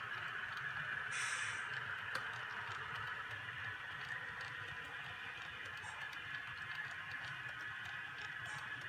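Model train tank cars rolling along the track with small ticking from the wheels, over a steady hum from the locomotive's sound decoder as the train pulls away. There is a brief hiss about a second in.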